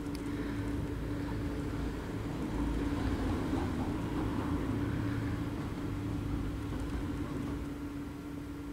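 Low background rumble with a steady hum underneath; the rumble swells about two and a half seconds in and eases off again a few seconds later.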